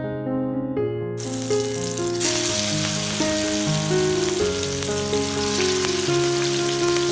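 Food sizzling in hot oil in a cooking pan, the sizzle starting about a second in, over background piano music.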